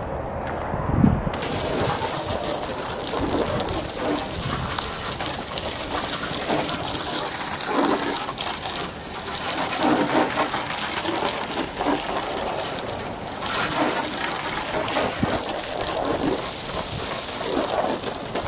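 Water spraying in a steady hissing rush that starts about a second in, with irregular rustling and knocks beneath it.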